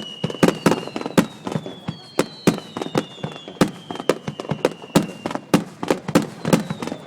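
Starmine fireworks barrage: shells bursting in rapid succession, several sharp bangs a second, some with a deep thump, over high whistles that fall slowly in pitch.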